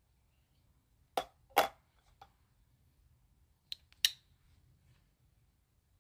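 Sharp clicks of slip-joint pocketknives being handled and laid on a glass mirror: two loud clicks about a second in, a lighter one just after, then another pair about four seconds in.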